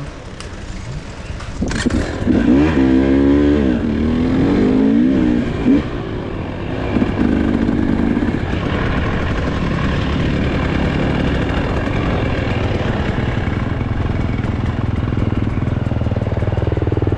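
GasGas EC300 two-stroke enduro bike engine revving up and down over uneven ground for a few seconds, then running at a steadier pitch.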